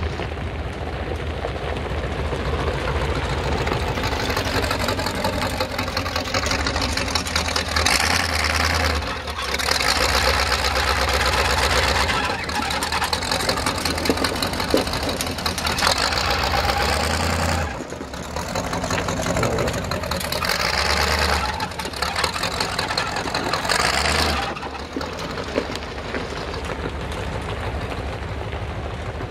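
Chevy mud truck's V8 with open headers running and being revved hard about five times, each blip rising sharply and dropping back before the next.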